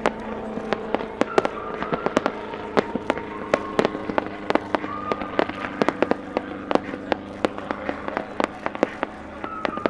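Fireworks mounted on a helicopter fire off crackles and sharp bangs in rapid, irregular succession, several a second, over a steady drone.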